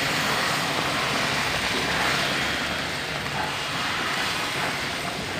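Hot boiled water pouring in a stream into a pan of ghee-roasted semolina, a steady splashing hiss as it hits the hot rava. This is the water being added to make rava kesari.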